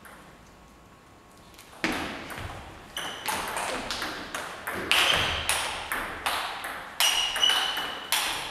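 Table tennis rally: the ball knocking off the bats and the table in quick alternation, about two to three sharp pings a second. The pings start about two seconds in, echo in a large hall, and grow louder toward the end.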